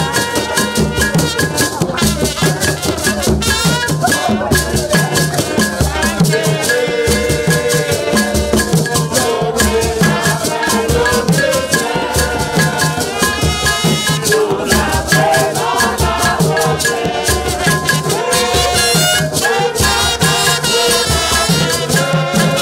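Live percussion music: tall hand drums struck with the palms and a shaker rattle keeping a dense, steady beat, with trumpets playing a melody over it.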